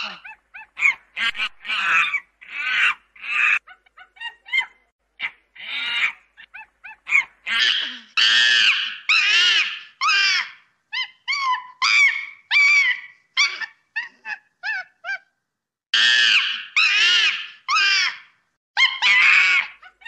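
Chimpanzee calling: a rapid series of short, high-pitched cries and hoots, several a second, in bouts broken by short pauses.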